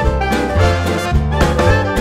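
Background music: upbeat jazz-style music with brass instruments over a moving bass line and a steady beat.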